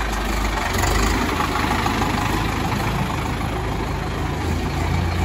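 Preet 6049 tractor's diesel engine running steadily.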